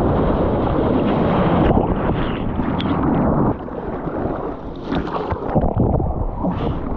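Wind buffeting the microphone: a loud, rumbling rush that drops away sharply about halfway through, then comes back in uneven gusts.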